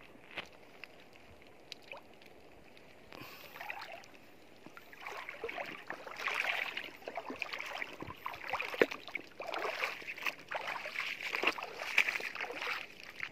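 Shallow seawater splashing and sloshing in irregular bursts as someone wades through it, starting about three seconds in and getting louder from about six seconds.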